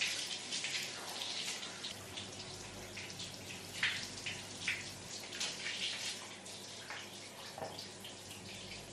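Shower running in a tiled stall: a steady hiss of spray from a handheld shower head, broken by irregular splashes and spatters as the water hits a person's head, hands and face while she washes her hair.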